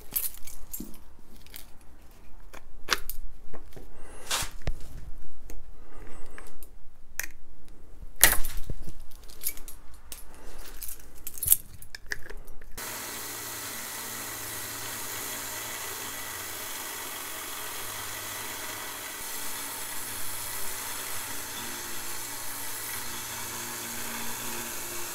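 A blade scraping and picking at the hard plastic left on a knife tang, with irregular clicks, scrapes and knocks. About thirteen seconds in this gives way to a gas torch burning with a steady hiss.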